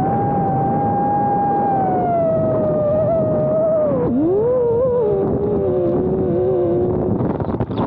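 FPV racing quadcopter's brushless motors and propellers whining over a rush of wind. The pitch holds steady, dips sharply about four seconds in, then climbs back and wavers at a lower pitch.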